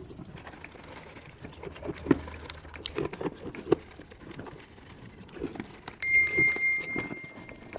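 Faint scattered clicks and knocks, then about six seconds in a bright bell-like ringing, struck several times in quick succession and fading away.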